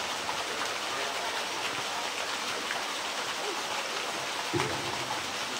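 Steady rushing noise of running water, with a brief voice about four and a half seconds in.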